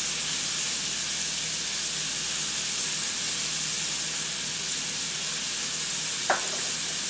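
Shrimp frying in butter and olive oil with chopped garlic in a stainless steel pan: a steady sizzle. One brief click comes near the end.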